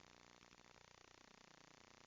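Near silence: only a very faint, steady background hiss.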